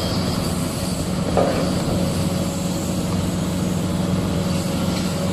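Diesel engine of a large Kobelco SK850 crawler excavator running steadily under load as it digs and loads, with a single knock about a second and a half in.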